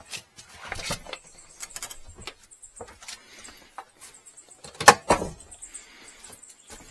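A house door being handled and pulled shut, with a sharp knock about five seconds in, amid footsteps and small clicks and rattles.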